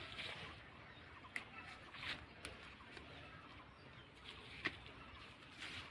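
Bean vine leaves rustling as beans are picked by hand, with a few short sharp clicks among the soft brushing noises.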